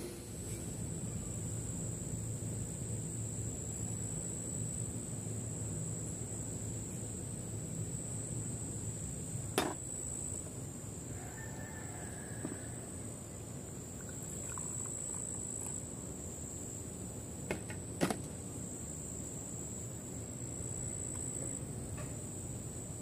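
Steady high-pitched insect drone in a garden, with two sharp clicks, one about ten seconds in and one near eighteen seconds.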